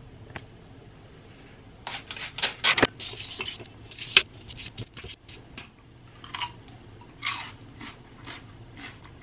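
A Y-peeler scraping strips of skin off a fresh cucumber in a quick run of strokes, then scattered crisp crunches of the cucumber.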